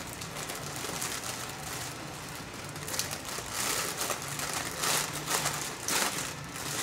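Clear plastic cereal bag crinkling and rustling as it is folded and pressed shut by hand, with louder bursts of crinkling from about three seconds in.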